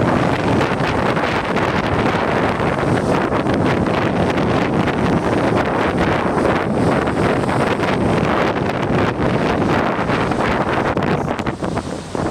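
Strong wind buffeting the microphone: a loud, steady rush of noise that dips briefly near the end.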